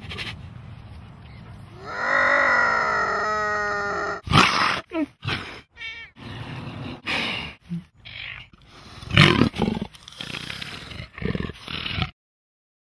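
Tiger vocalizing: a long, clearly pitched call about two seconds in that breaks into a rapid rattle, followed by a string of short, loud calls. The sound stops abruptly about twelve seconds in.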